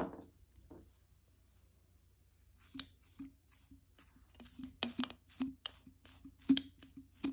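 Glitter being shaken from a small plastic bottle into a clear plastic ornament: a quick run of light plastic clicks and taps, about four a second, starting a couple of seconds in.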